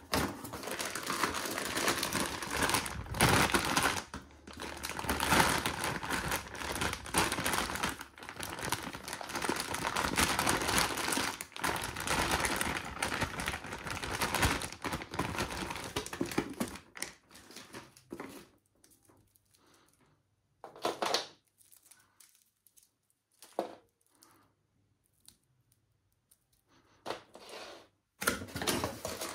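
A clear plastic bag crinkles and rustles as a bundle of flat black modular power-supply cables is pulled out of it and handled. The rustling is continuous for about the first two thirds, then gives way to scattered short rustles and clicks.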